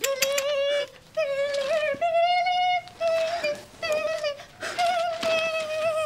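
A woman singing a high wordless chant in long held notes, phrase after phrase with short breaks between them.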